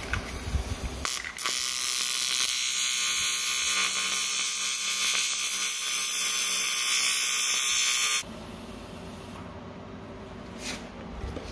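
TIG welding arc on a 4L80E transmission's cast aluminum bellhousing: a steady high buzzing hiss. It strikes abruptly about a second in and cuts off about seven seconds later.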